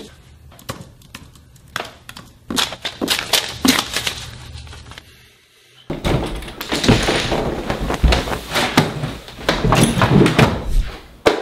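Sharp clicks and taps at a computer keyboard and desk, then, after a short gap, a louder run of thumps and bangs.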